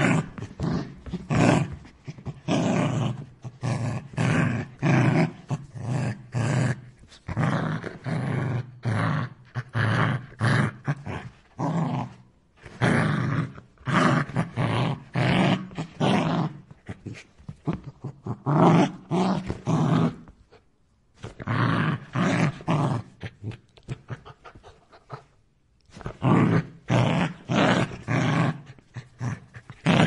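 An angry dog growling in short, repeated bursts, several a second, broken by a few brief pauses in the second half.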